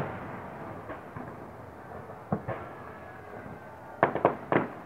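Distant fireworks salute bangs echoing across open water: the fading rumble of a bang at the start, a single bang about two and a half seconds in, then a quick run of bangs near the end.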